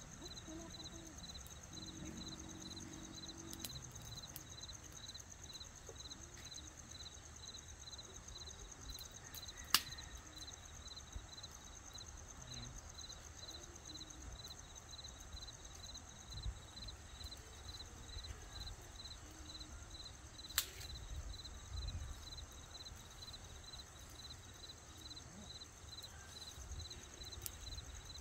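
Night campsite ambience: a campfire gives off occasional sharp pops and crackles, two of them loud at about ten and twenty-one seconds in. Behind them, night insects keep up a steady high hum and an evenly pulsed chirp, over a low rumble.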